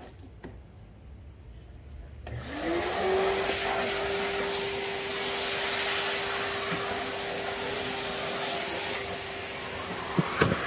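Total TVC14301 30-litre wet and dry vacuum cleaner's 1400 W motor switching on about two seconds in. Its whine rises quickly, then runs at a steady pitch over a rush of air. A couple of short knocks come near the end.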